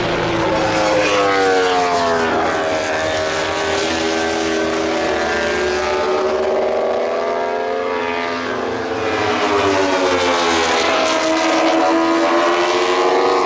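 Racing motorcycle engines running hard, their pitch falling and then rising again several times as the bikes come and go.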